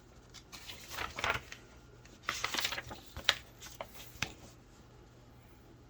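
Hands handling small objects on a table: short bouts of rustling followed by three sharp clicks about a second apart, like plastic parts being set down or knocked together.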